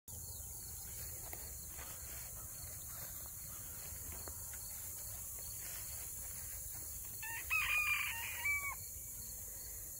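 A rooster crows once, about seven seconds in: a stepped call lasting about a second and a half, over a steady low background rumble.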